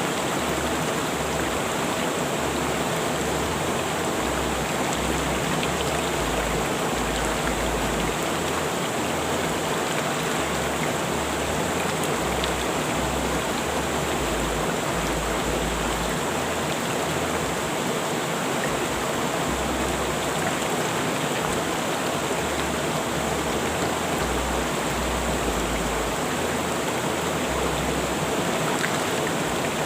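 Rushing river water, a steady even rush of flowing water.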